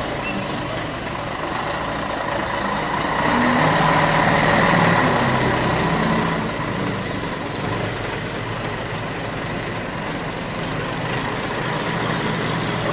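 Scania T113 360 truck's turbocharged straight-six diesel running under load as it slowly hauls a heavy locomotive on a lowboy trailer, with a steady high-pitched whine over the engine. It grows louder for a few seconds as the truck comes closest, about four seconds in.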